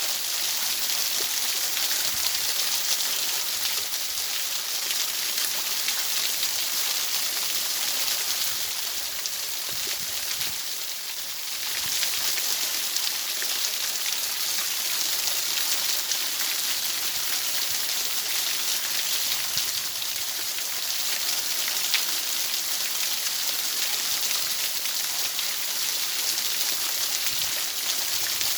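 Steady rain on a surface: an even hiss of drops with fine pattering ticks, easing slightly for a moment about ten seconds in.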